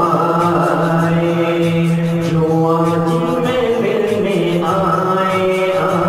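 A voice singing a devotional chant in long held notes that bend in pitch, over a soft steady rhythmic backing.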